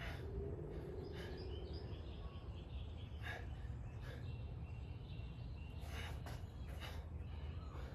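Steady low street rumble with birds chirping, and a few short, sharp breaths spaced a few seconds apart from a man exhaling through push-up reps.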